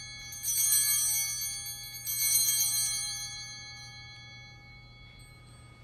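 Altar bells rung at the elevation of the chalice during the consecration at Mass: a cluster of small bells shaken twice, about half a second and two seconds in, each ring fading slowly and dying away by about five seconds in.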